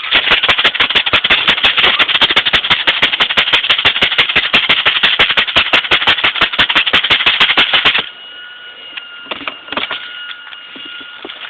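Airsoft gun firing on full auto: a rapid, even string of sharp shots that stops abruptly after about eight seconds, followed by a couple of single shots.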